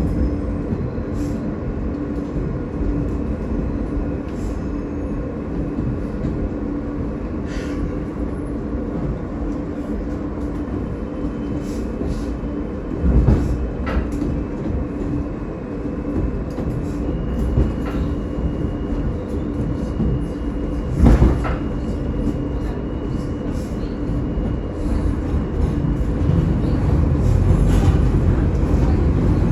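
Interior of an R160A subway car running between stations: a steady rumble of wheels on rail under a steady hum, with a few knocks from the track, the loudest about 13 and 21 seconds in. The rumble grows louder near the end.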